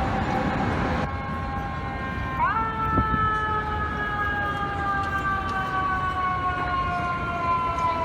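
Fire engine siren: a quick rise in pitch about two and a half seconds in, then a long, slow fall in pitch, over steady traffic noise. Before it, a steady horn tone cuts off about a second in.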